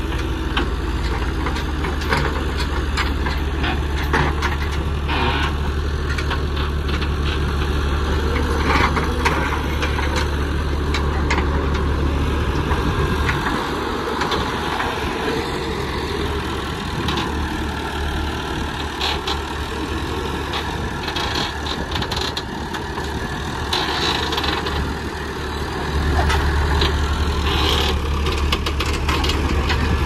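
JCB 3CX backhoe loader's diesel engine running, with scattered clanks and knocks from the machine at work. The steady low engine drone eases off for a while in the middle and comes back strong near the end.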